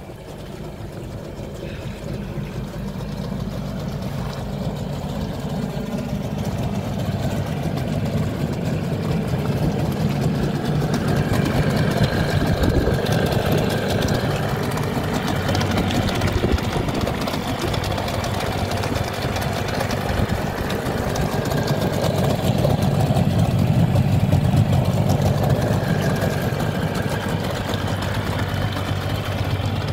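Mercury 25 hp outboard motor running steadily with its lower unit in a tub of water, churning and splashing the water. The sound builds over the first several seconds, then holds steady.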